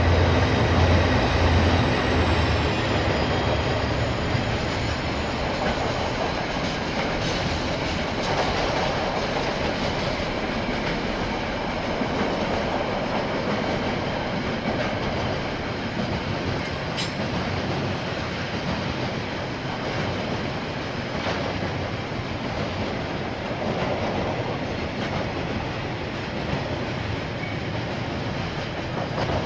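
KiwiRail diesel-hauled freight train passing close by. A heavy low engine drone is strongest in the first couple of seconds and then gives way to a long line of container wagons rolling past with steady wheel rumble and clatter. A thin high whine sinks slightly in pitch within the first few seconds.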